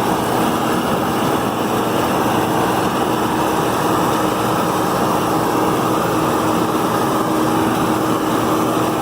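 John Deere 4440 tractor's six-cylinder diesel running steadily, pulling a New Holland Roll-Belt 450 round baler that is working hay: a continuous drone with one held tone through it.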